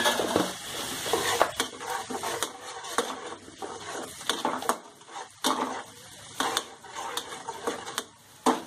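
A spatula stirs and scrapes fried onions and spices around a nonstick kadai, giving irregular scrapes and clacks against the pan. Under them the onions sizzle lightly in the oil, most plainly in the first second or so.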